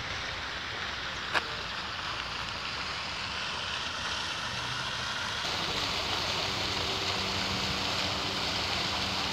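Fountain jets spraying and splashing into a reflecting pool: a steady rushing hiss that grows louder about five and a half seconds in. A single sharp click comes about a second and a half in, and a faint low hum joins near the end.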